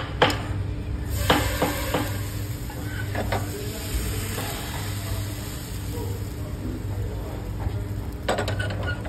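Rice-and-khoya batter sizzling on a hot iron tawa. The hiss comes in about a second in and holds steady, with a few sharp clinks of the steel ladle against the pot and griddle.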